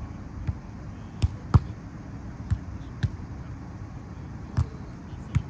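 A volleyball being struck by players' hands and forearms during a rally: a string of sharp slaps, about seven in all, the loudest about a second and a half in, over a steady low background noise.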